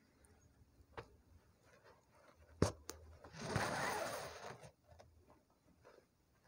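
Satin ribbon being drawn through embroidery fabric stretched in a hoop: one rasping swish lasting about a second and a half, after a couple of sharp clicks.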